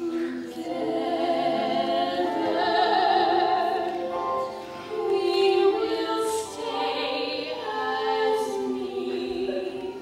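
Two women's voices singing a slow stage-musical song through headset microphones, holding long notes in phrases with short breaks between them.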